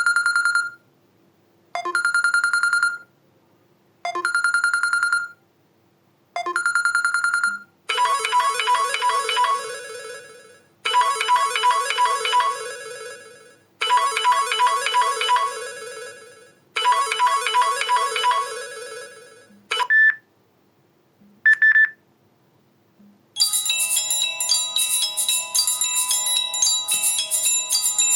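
Samsung Galaxy Feel phone ringtones previewed one after another. First comes a repeating single-pitch ring of four one-second tones about two seconds apart. Then a short melodic ringtone plays four times, two brief blips follow, and a bell-like tune starts near the end.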